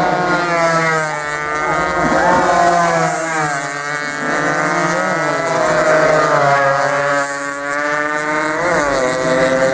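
Several racing motorcycle engines revving, their pitch swooping up and down again and again, with sharp climbs about midway and again near the end.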